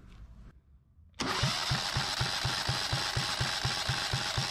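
Yanmar 1GM single-cylinder diesel being cranked on its electric starter without firing, for a compression test with the injector out. The starter whine and a steady rapid thumping, about five beats a second, start suddenly about a second in. The gauge reads about 300 psi.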